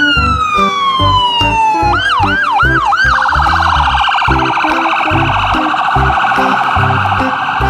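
Electronic ambulance-style siren: a falling wail, then four quick rising whoops about two seconds in, then a fast yelping warble. Background music with a steady beat plays underneath.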